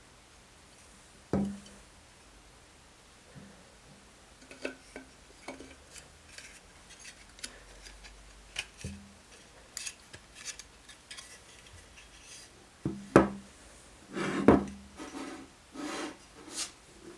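Hard objects being handled and set down: scattered light clicks, knocks and rubbing, with a sharp knock about a second in and several louder knocks and scraping near the end.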